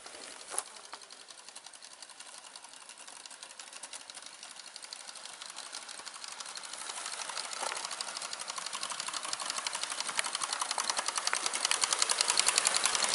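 Gauge 1 model train, a small tank locomotive hauling coaches, approaching on garden track: a rapid, even clatter that grows steadily louder as it draws near.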